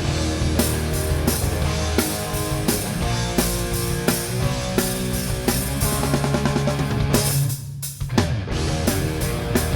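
Rock band playing live with electric guitars, bass and drum kit, an instrumental passage with no singing. About seven seconds in the band briefly stops, leaving a held bass note, then the drums crash back in.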